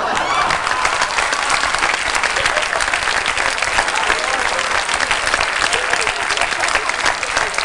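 Studio audience applauding, many hands clapping steadily.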